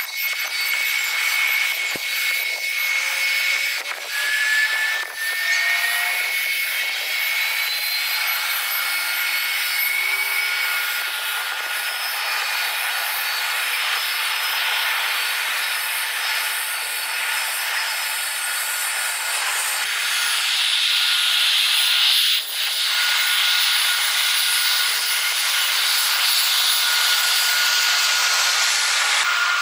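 Airliner jet engine noise sped up four times, heard as a high hissing rush with thin whining tones that slowly glide upward, broken by several sudden cuts.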